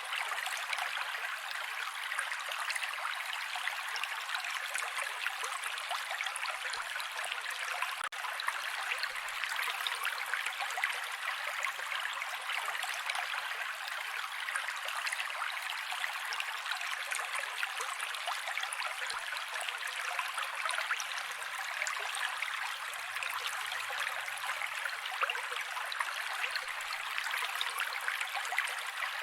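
Mountain creek flowing steadily: an even, unbroken rush of running water.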